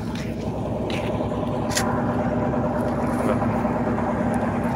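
Fishing boat's engine running steadily at idle, a low even hum. A single sharp click about two seconds in.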